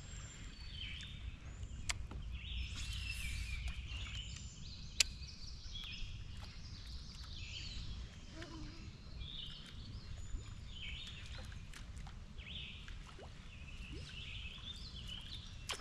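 Faint birdsong, many short chirps on and off, over a low steady rumble, with two sharp ticks about two and five seconds in.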